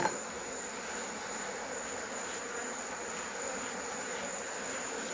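Many African honeybees buzzing around an opened hive: a dense, steady hum.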